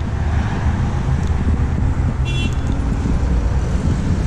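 Steady low rumble of road traffic, with a brief high-pitched chirp a little after two seconds in.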